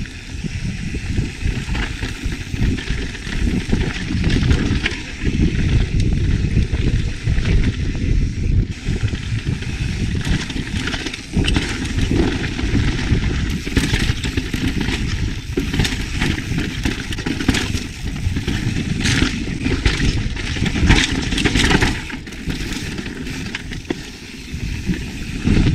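Yeti SB150 mountain bike ridden fast down rocky dirt singletrack: tyres crunching and skidding over dirt and stones, the bike rattling over bumps, and wind buffeting the camera microphone. The sound is unsteady throughout, with a quieter patch about 22 seconds in.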